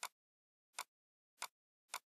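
Four short, sharp clicks of computer input, mouse buttons and keys, spaced about half a second to a second apart.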